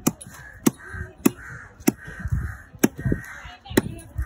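A large fish-cutting knife chopping through fish onto a wooden chopping block: about six sharp strikes, one every half-second to second. A hazier calling sound runs between the strikes.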